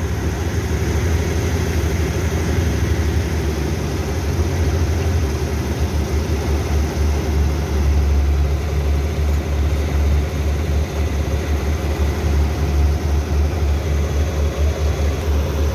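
Combine harvester's diesel engine idling with a steady low rumble, a little louder about eight seconds in.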